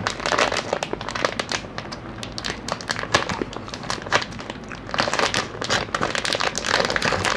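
Thin plastic snack packaging crinkling and crackling irregularly as a hand rummages in a clear plastic bag of small snack packets and pulls them out.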